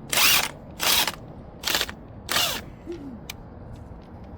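Cordless impact drill with a 19 mm socket driving the crankshaft pulley bolt home in four short trigger pulls, each about a third of a second long, tightening the bolt.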